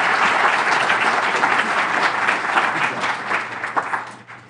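Audience applauding, a dense patter of many hands clapping that thins out and fades away in the last second.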